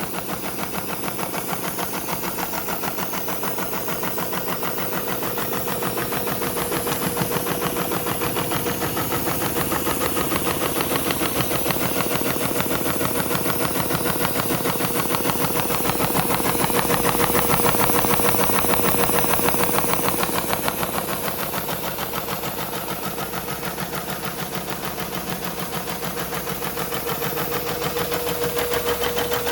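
Heavy-duty programmable pattern sewing machine stitching a diamond pattern with heavy size 270 thread through vinyl and foam at about 400 RPM, a steady, even run of several stitches a second. The machine's air cooler hums underneath. The sound grows louder for a few seconds about halfway through.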